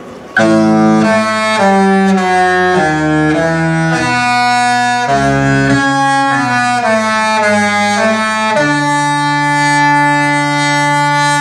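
Cruise ship's musical horn playing a tune: about fourteen short chord notes in a row, then a long held final chord that cuts off at the end.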